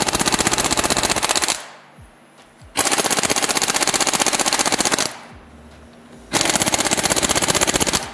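Impact wrench hammering on a wheel's lug bolts in three bursts of roughly two seconds each, driving the lugs tight on a newly mounted wheel.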